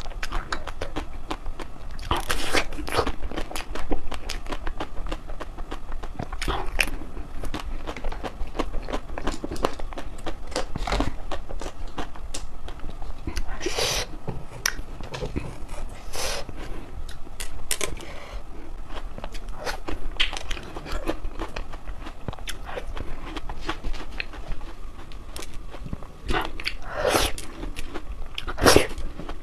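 Close-up crunching and chewing of crispy chocolate ice cream: irregular sharp crunches, some louder bites, over steady mouth sounds.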